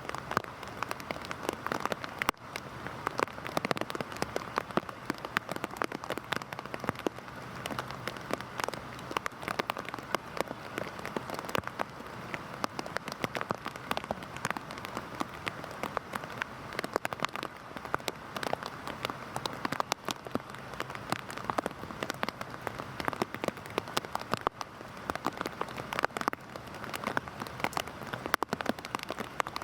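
Heavy rain falling steadily, with a continuous hiss and many sharp individual drops pattering on a surface.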